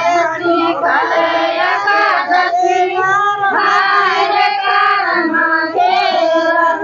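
Girls singing a Karma puja song together, several voices in unison over the whole stretch.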